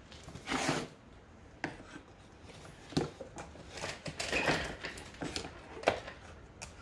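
Plastic recoil starter housing being pushed and worked into place on a Stihl TS420 cut-off saw: irregular scraping and rubbing of plastic against the saw's housing, with a few sharp knocks and clicks as it seats.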